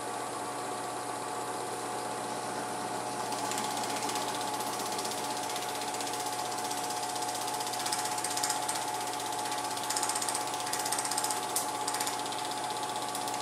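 Film projector running: a fast, even mechanical clatter over a steady hum, with a few sharper clicks in the second half.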